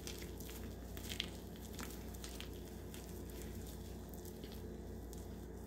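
Homemade glue-and-shaving-cream slime being kneaded by hand, giving faint, sticky squishing with a few small squelches, over a steady low hum.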